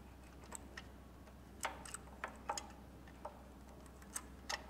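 Faint, irregular light metal clicks as a timing chain and cam sprocket are handled and seated on the camshaft of an Arctic Cat H2 engine while the cam timing is set.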